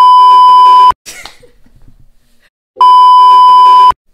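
Television test-card tone: a loud, steady, high-pitched beep sounding twice, each about a second long, with a short burst of static-like hiss between them about a second in.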